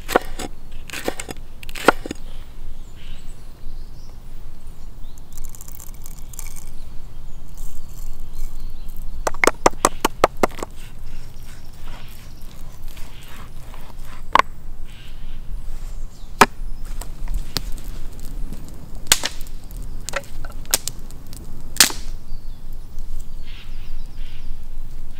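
A knife chopping on a wooden cutting board, in sharp separate strikes: a few at the start as red chilies are sliced, a quick run of chops about ten seconds in, then single strikes a second or two apart as a cleaver cuts through veal shanks.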